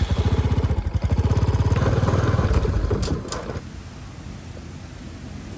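Motorbike engine running with a fast, even low pulse, stopping abruptly about three and a half seconds in and leaving a steady hiss.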